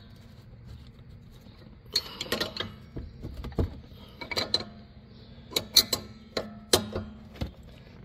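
Coilover spanner wrenches clicking and clinking against the threaded collars as the two collars are tightened against each other to lock the spring preload. The sharp metal clicks come irregularly from about two seconds in, the loudest a little before six and seven seconds.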